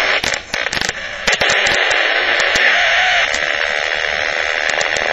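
Static-like hiss with scattered crackles and clicks from the audible alarm of an RF/microwave field detector, sounding in response to the RF field of a ferrite core resonating at about 1.14 MHz. The hiss drops out briefly amid a cluster of clicks about half a second in, then carries on steadily.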